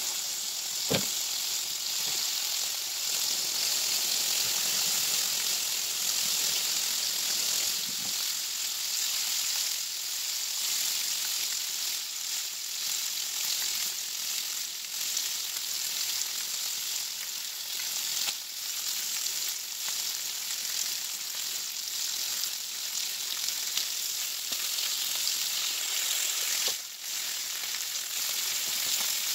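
Bacon frying in hot fat in a skillet: a steady sizzle, with a sharp click about a second in and a brief knock near the end as tongs reach into the pan.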